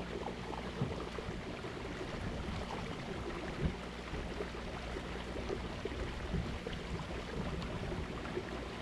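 Lake water lapping and gurgling against a kayak hull: a steady wash with small scattered knocks, one sharper knock about three and a half seconds in.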